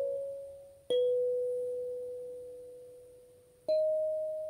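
Gecko kalimba tines plucked by thumb: a single note a second in, left to ring and fade slowly for almost three seconds, then a slightly higher note near the end.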